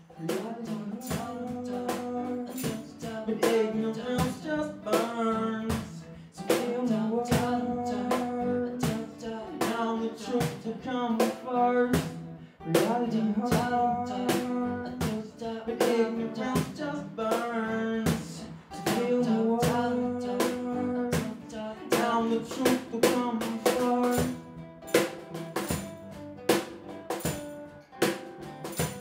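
Live acoustic music: a cajón beating a quick, busy rhythm under a strummed acoustic guitar, with a man singing.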